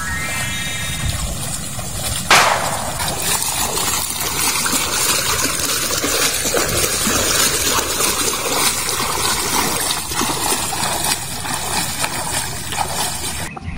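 Footsteps wading through shallow water, splashing and sloshing with each stride. In the first second a short rising run of tones plays, and about two seconds in a sharp whoosh-hit sounds, the title logo's sound effects.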